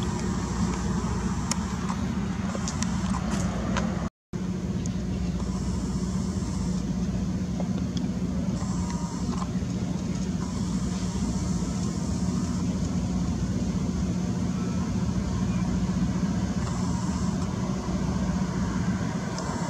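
Steady low mechanical hum, like a running engine, that does not rise or fall, cutting out for a moment about four seconds in.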